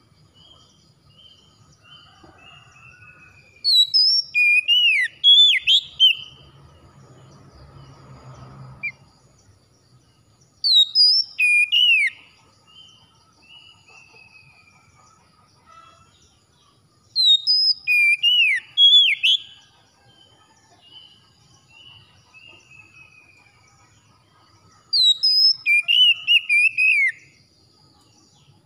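Oriental magpie-robin singing: four loud phrases of rich, sweeping whistles and slurred notes, each about two seconds long and several seconds apart. Softer runs of falling whistled notes fill the pauses.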